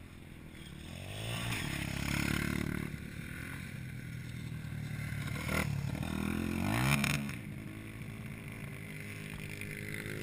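Dirt bike engine revving as it is ridden around a dirt track. The pitch climbs about a second in and again near seven seconds, holding steadier in between.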